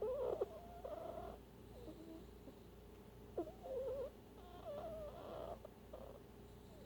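A sleeping animal snoring: two drawn-out breaths, each with a wavering pitch, a few seconds apart.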